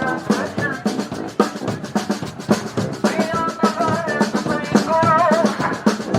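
Brass band playing live: snare and bass drum keep a busy beat under the horns, and a horn melody comes forward about halfway through.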